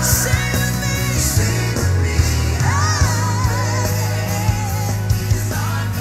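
Gospel song playing for liturgical dance: a singing voice with a wavering melody over a steady bass line and drum beat.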